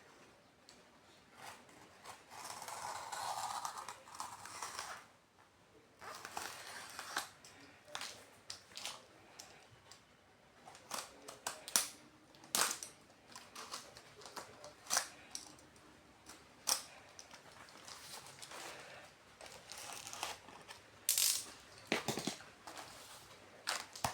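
Vinyl record packaging being handled and opened: plastic wrap crinkling and tearing, with a longer rustle about two seconds in, then many sharp clicks and taps.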